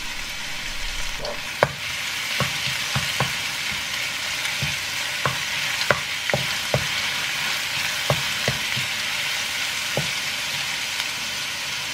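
Minced garlic sizzling in hot oil in a nonstick pan while it is sautéed toward golden brown, the sizzle growing stronger about two seconds in. A wooden spoon stirs it, knocking lightly against the pan now and then.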